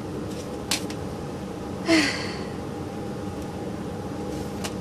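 A woman's short breathy sigh, falling in pitch, about two seconds in, after a faint click. A steady low hum runs underneath.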